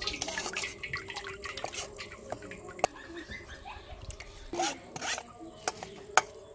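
A spoon scraping and tapping against a sieve while a ground green-coriander mixture is pressed and washed through it, with liquid dripping into the bowl below; a series of short scrapes and clicks.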